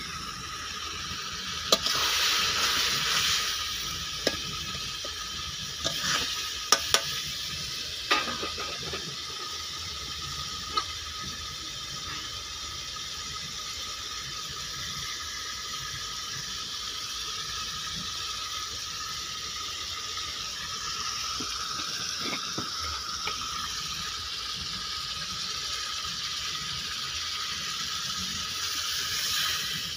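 Chicken curry simmering and sizzling in a metal kadai over a wood fire, a steady hiss with a few sharp clicks and knocks within the first eight seconds.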